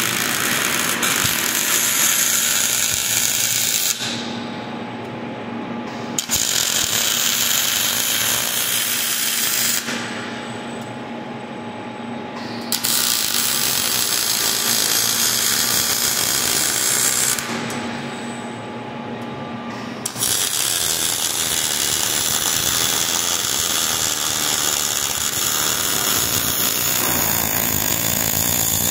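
Robotic MIG welding arc on steel truss sections: a loud, steady hissing arc noise. It breaks off three times for two to three seconds each, leaving a fainter steady hum.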